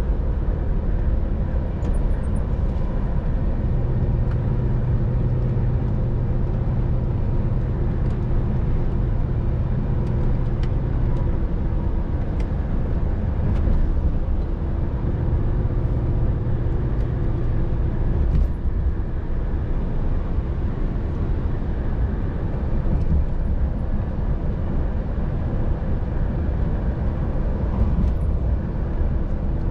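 Scania R500 truck cruising at motorway speed, heard from inside the cab: a steady engine drone with tyre and road noise. A low hum swells for several seconds at a time, twice.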